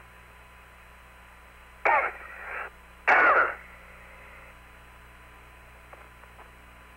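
Apollo air-to-ground radio link with a steady hiss and hum. A man's voice breaks in twice over it, about two and three seconds in, with two brief grunt-like vocal sounds.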